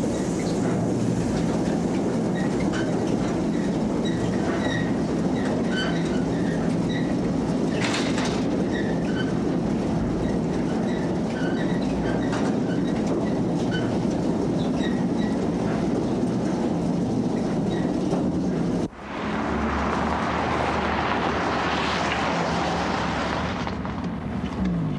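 Train running on rails: a steady rumble and rattle with short, high wheel squeaks scattered through it. About three-quarters of the way through the sound breaks off sharply and carries on hissier, then fades near the end.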